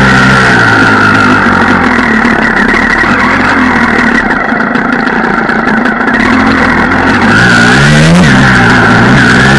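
Dirt bike engine running hard under the rider, its pitch rising and falling with the throttle; it eases off about four seconds in and revs up again near the end.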